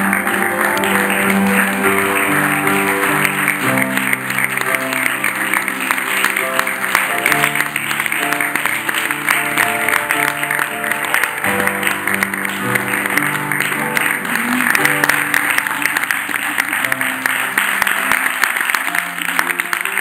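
Grand piano played live, a tune of held notes in the low and middle range, under steady audience applause.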